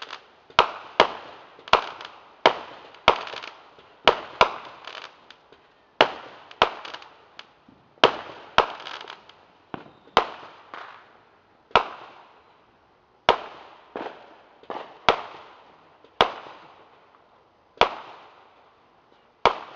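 Aerial firework shells bursting one after another: about twenty sharp bangs, irregularly spaced roughly a second apart, each trailing off in an echo.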